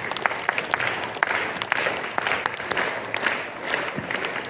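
An audience of schoolchildren applauding, many hands clapping, fading away near the end.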